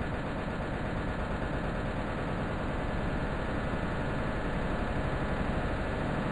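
A single sound sample on the Thirty Dollar Website sequencer retriggered at an extreme, accelerating tempo, so that the repeats blur into a continuous dense buzz that grows slowly louder.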